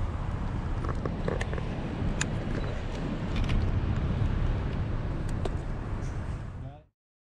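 Car rolling slowly along a paved road, with a steady low rumble of tyre and wind noise on the microphone through an open window and a few faint clicks. The sound cuts off abruptly near the end.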